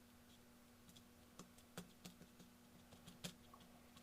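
Near silence with a faint steady hum and a few faint, scattered clicks and taps: hands pressing grout into a small model roof and handling the model.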